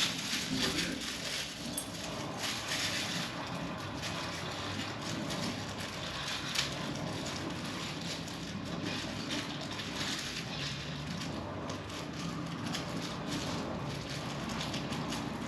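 Small irregular clicks and rustles of screws and fan mounting hardware being handled, over a steady background hiss.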